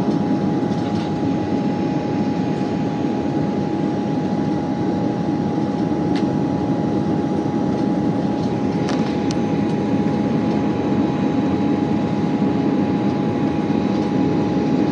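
Airliner cabin noise on final approach, heard from a window seat: a steady rush of engine and air noise with a steady whine running through it, and a few faint clicks about six and nine seconds in.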